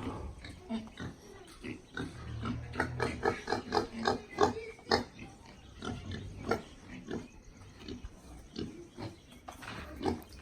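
A pen of pigs grunting, many short calls in quick succession, busiest and loudest between about two and five seconds in.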